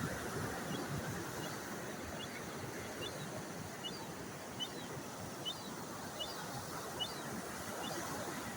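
Steady surf and wind noise at the beach, with a string of short, high bird chirps repeating less than a second apart from a couple of seconds in.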